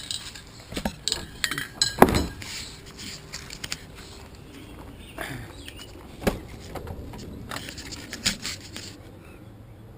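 Metal spray-adhesive cans clinking and knocking together as they are handled, with two heavier knocks about two and six seconds in. The clatter dies down near the end.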